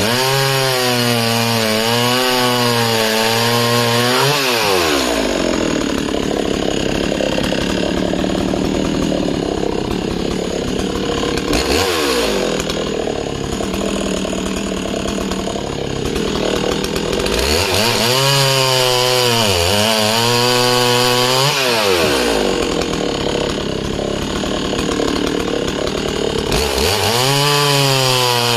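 Husqvarna 61 two-stroke chainsaw held at full throttle and cutting conifer logs. Its high, wavering note sweeps down and is lost in the dense sound of the chain in the wood for long stretches, then rises again as the saw comes free between cuts.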